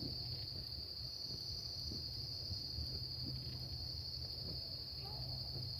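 Steady, high-pitched trilling of an insect chorus, unbroken throughout, over a faint low hum.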